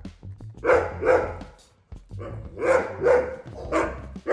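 Dogs barking in a string of short barks, grouped in twos about a second in and around three seconds, with one more near the end.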